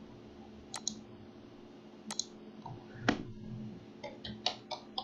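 Computer mouse clicks, three separate clicks about a second apart, then quick keyboard keystrokes starting near the end, over a faint steady hum.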